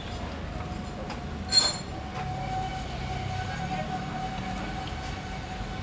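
A single sharp metallic clink about one and a half seconds in, ringing briefly with a bright tone, like a steel tool or part knocked against metal during hydraulic pump repair work, over a steady background hum.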